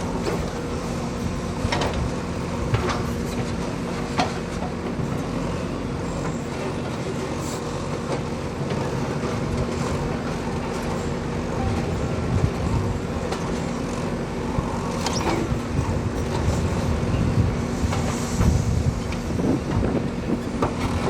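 Backhoe loader's diesel engine running steadily, with a few sharp knocks now and then.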